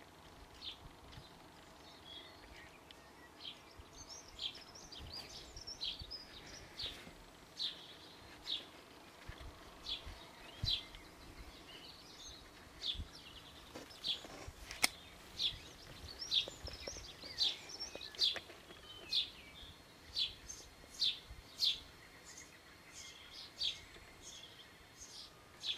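A bird repeating a short, sharp, high call note, roughly once a second, with some softer twittering about four to six seconds in. A single sharp click comes about fifteen seconds in.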